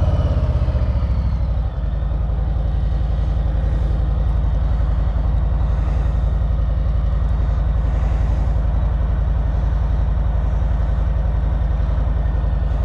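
2020 Harley-Davidson Street Bob's Milwaukee-Eight V-twin idling just after a start: the revs drop from a fast idle a little under two seconds in, then it runs steadily.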